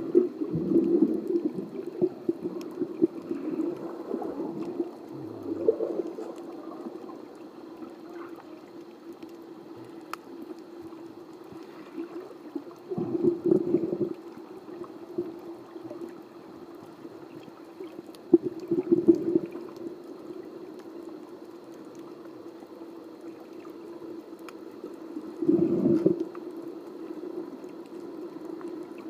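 Water gurgling and bubbling, muffled as if heard underwater, over a steady low hum. Louder bursts of bubbling come at the start and three more times, several seconds apart.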